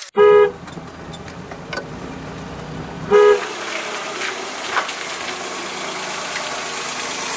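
Horn of a Maruti Suzuki 800 hatchback sounding two short beeps about three seconds apart, with the car's engine running low underneath during the first three seconds.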